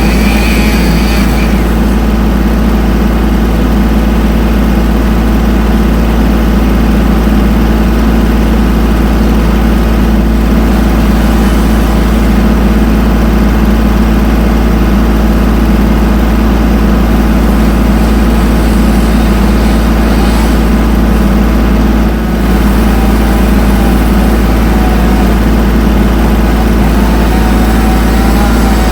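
A loud engine running steadily at constant speed, with a brief dip in level a little over twenty seconds in.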